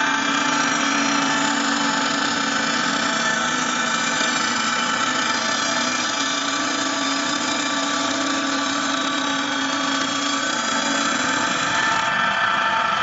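CNC wood lathe running steadily: its motors and spiral planer cutter drum spinning, with a constant hum made of several steady tones.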